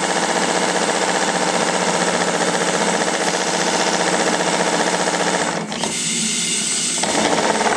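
Model boat steam engine running steadily under steam, turning a variable-pitch propeller on the bench with a fast, even mechanical clatter. Near six seconds in the sound dips briefly and changes as the propeller pitch is shifted.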